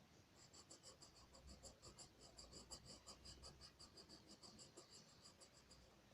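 Faint, quick back-and-forth strokes of a drawing tool scratching on paper, about five or six a second, typical of shading or hatching. The strokes start just after the beginning and stop a little before the end.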